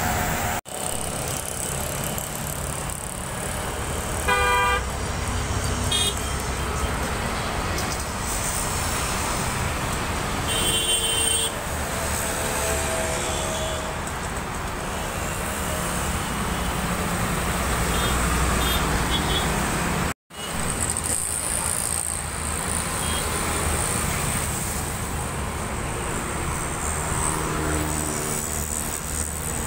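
Steady road traffic noise from passing cars, auto-rickshaws and motorbikes, with several short horn toots, the loudest about four seconds in.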